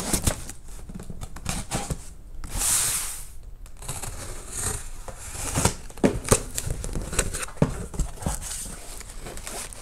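Box cutter slitting the packing tape on a cardboard shipping box, a hissing rip of about a second near three seconds in, followed by the cardboard flaps being pulled open with scrapes, taps and rustling.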